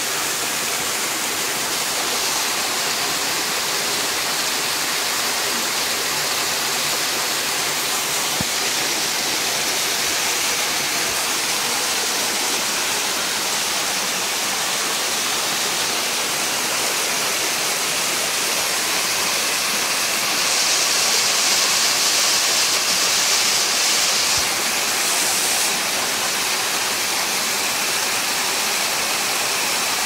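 Waterfall pouring down a rock face: a loud, steady rush of water, swelling louder for a few seconds about two-thirds of the way through.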